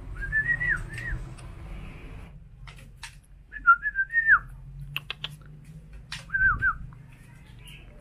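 Person whistling: three short whistles a few seconds apart, each holding a pitch and then dropping away, with a few light taps in between.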